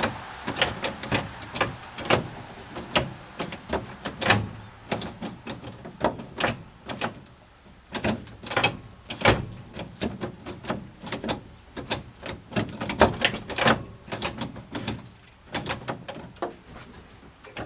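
Chevrolet C10's three-on-the-tree column shift linkage clicking and clunking as the lever is worked repeatedly through the gears after adjustment: a steady run of irregular sharp clicks and knocks.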